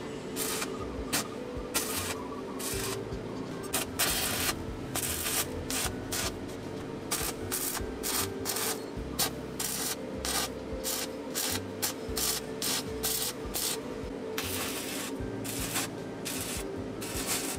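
Electric arc welding on steel pipe: the arc crackles continuously in irregular bursts, with short breaks as the electrode is lifted and moved between weld spots.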